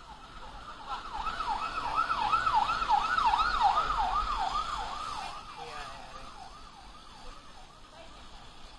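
An electronic siren in a fast yelp, its pitch sweeping up and down about three times a second. It starts about a second in, is loudest in the middle, and fades away toward the end.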